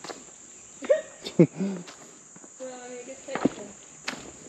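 A steady high-pitched chorus of insects in summer woodland, with irregular footsteps on the trail.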